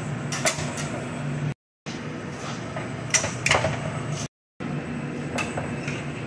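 Stainless-steel tongs clicking and clinking against metal wire racks and sheet pans as grilled steaks are moved: a few sharp clinks, two in quick succession near the middle, over a steady mechanical hum. The sound drops out briefly twice.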